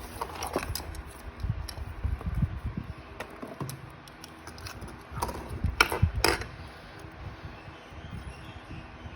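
Handling noise of small items and packaging being unpacked: scattered light clicks, taps and low knocks, with two louder handling sounds about six seconds in.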